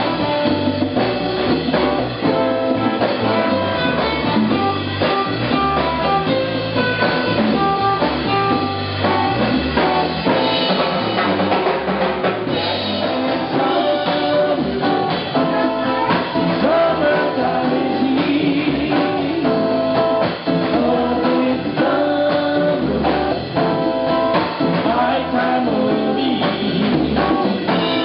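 A live band playing: ukulele and bass guitar over a drum kit and congas, with a man singing lead into a microphone.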